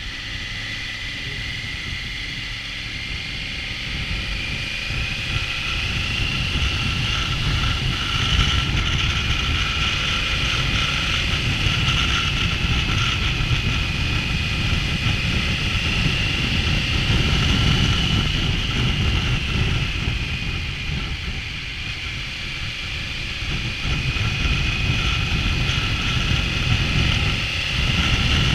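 Triumph Tiger 900 motorcycle under way: heavy wind rush on the microphone over the engine's note, which drifts slowly up and down in pitch as the speed changes. It grows louder over the first few seconds and dips briefly about three quarters of the way through.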